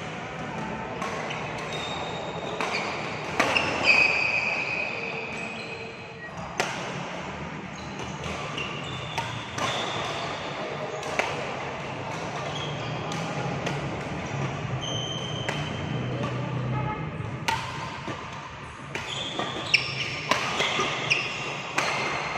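Badminton play on a court: sharp racket strikes on a shuttlecock at irregular intervals, mixed with short high squeaks of court shoes on the floor.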